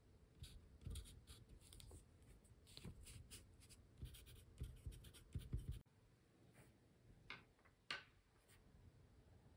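Wooden pencil writing on brown kraft paper: short, soft scratchy strokes of the graphite as numbers are written. After a cut, two light taps near the end as pencils are handled on the table.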